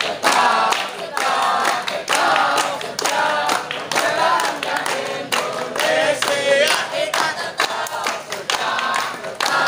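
A group of boys chanting a song together in unison, with hand claps among the voices.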